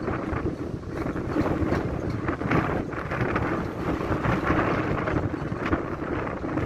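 Strong, gusty wind buffeting the phone's microphone ahead of a thunderstorm, a rough rumbling rush that swells and dips with each gust.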